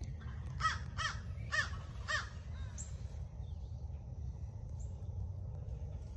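A crow cawing four times, about half a second apart, each call a short harsh arched note.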